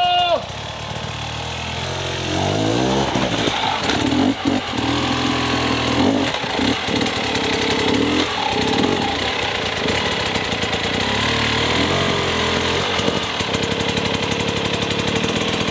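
Dirt bike engine revved in repeated bursts, its pitch rising and falling as the rider works the stalled bike up a steep slope.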